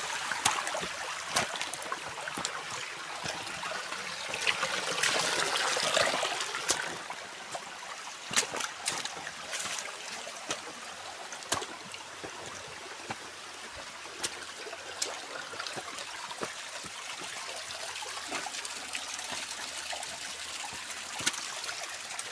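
Water in a small stream trickling and splashing steadily, with frequent sharp drip and splash clicks; somewhat fuller for the first six seconds, then slightly quieter.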